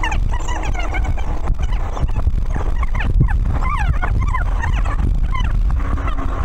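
Many children's voices shouting and squealing, short overlapping cries, over a steady low rumble.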